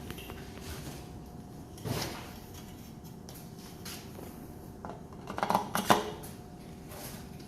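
Hard parts of a stand fan being handled and fitted together: a single knock about two seconds in, then a short burst of clattering knocks near six seconds, over a faint steady hum.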